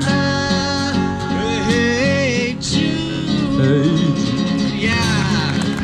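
Live acoustic guitar music with a sliding melody line carried over the chords.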